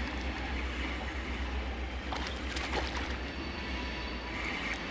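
Steady rush of river current with a low rumble, with a few brief sharp splashing sounds about two to three seconds in.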